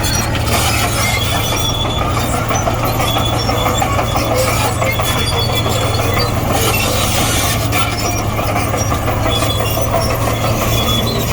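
Komatsu D58E crawler bulldozer's diesel engine running steadily under work, with the grinding and many short high squeaks of its steel tracks.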